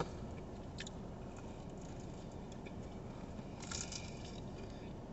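A person biting into and chewing a slice of pizza, faintly, with a short crisp bite sound a little under four seconds in.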